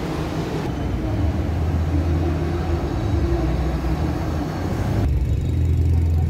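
Road traffic: a steady low rumble of idling and passing vehicle engines. The background changes abruptly about a second in and again about five seconds in.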